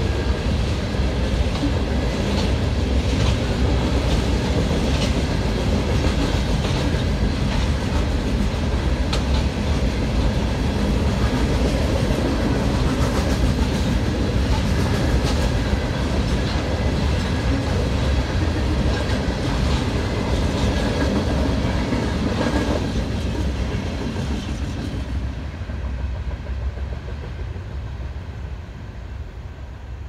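Freight cars of a coal train rolling past, wheels clacking over the rail joints. The noise fades away over the last several seconds as the end of the train goes by.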